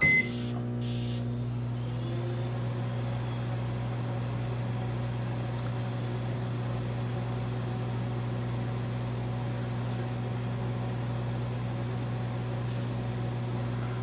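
Microwave oven running: a steady low hum that holds unchanged throughout, after a short single beep at the very start.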